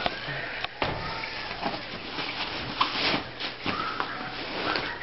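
Rustling of a nylon-and-mesh drawstring bag and the clothing being pulled out of it, with a few sharp clicks and knocks from handling.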